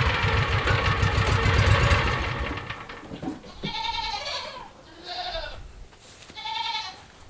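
A side-by-side utility vehicle's engine running, fading away about two seconds in. Then three bleats from farm livestock, each lasting under a second.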